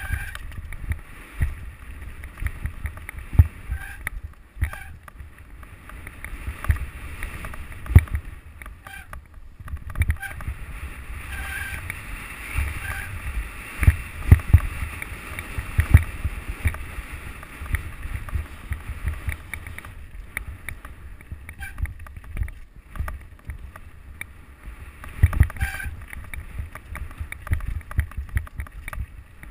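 Mountain bike running down a rocky gravel trail, heard from a camera mounted on the bike: a continuous rumble of tyres on loose stones and wind on the microphone, broken by frequent sharp knocks and rattles as the bike hits bumps and rocks.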